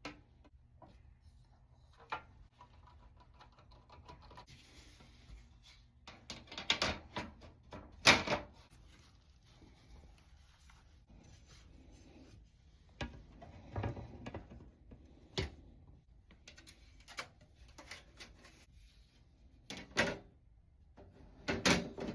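Irregular clicks, knocks and light rattles of computer parts and cables being handled and plugged back in, in scattered clusters with the loudest knock about eight seconds in.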